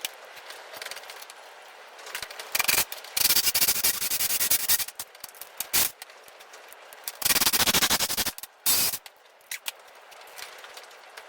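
Electric drill boring holes through steel clamp plates, in several bursts; the longest each last over a second.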